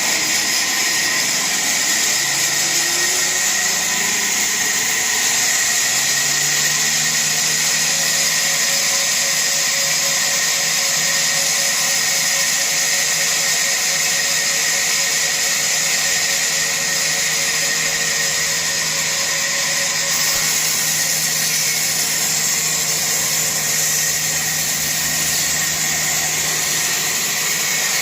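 Power woodworking machine running steadily with a loud, high hiss and a thin whistling tone. Its low hum rises in pitch over the first few seconds, then holds steady.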